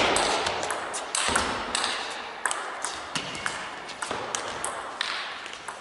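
Table tennis rally: the ball clicks sharply off bats and table again and again, at an irregular pace, over bursts of noise in the hall.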